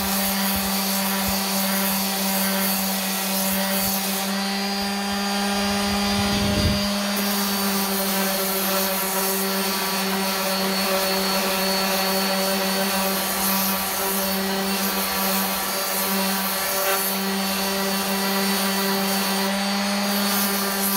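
Electric sander running steadily on wooden furniture, a constant motor hum with a whirring overtone.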